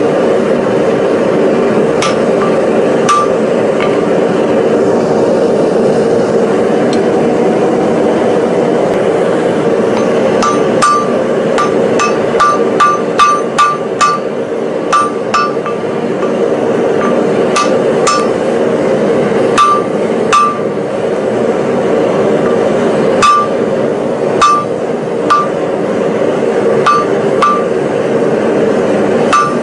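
Hand hammer striking a glowing 4140 steel hammer head on an anvil, each blow a sharp strike with a short ringing ping. Two single blows come first; after a pause, irregular runs of blows follow. A steady droning noise runs underneath throughout.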